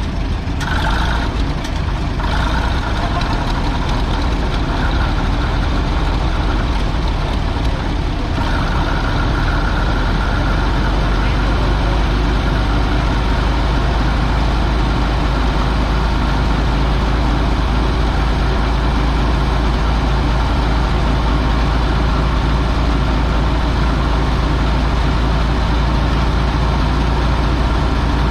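Heavy engine idling steadily, with a deep low rumble throughout.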